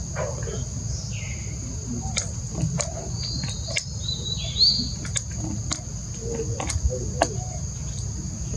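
Steady high-pitched insect drone throughout, with scattered short clicks and rustles and a few brief curved chirping calls.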